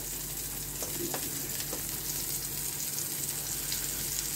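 Steady sizzle of hamburger sandwiches heating on an electric contact grill to melt the cheese, with a few faint taps about a second in as the buns are moved on the grill plate.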